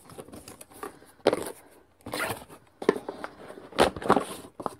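Cardboard mailing box being opened and the paper packaging inside pulled out and handled: irregular rustling and crinkling in bursts, the loudest near the end.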